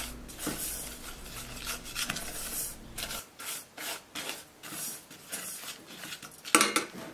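Silicone spatula stirring dry granulated sugar and cocoa powder in a stainless steel saucepan: a gritty scraping of sugar crystals against the pot in repeated strokes, with a louder stroke near the end.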